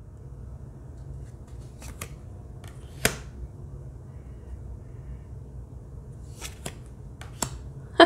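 Glossy oracle cards being handled and swapped one after another: a few short sharp card clicks and slides, the loudest about three seconds in and several more near the end, over a low steady hum.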